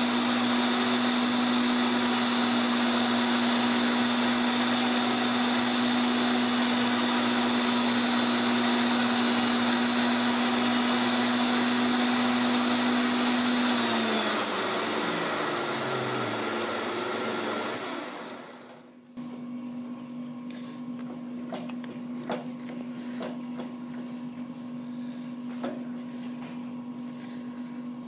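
Tool post grinder running a silicon carbide wheel through a light finishing pass on an R8 tool shank turning in the lathe: a loud, steady motor hum with a high hiss. About halfway through it is switched off and spins down with a falling pitch. After a short dip, a quieter steady hum with a few light ticks carries on.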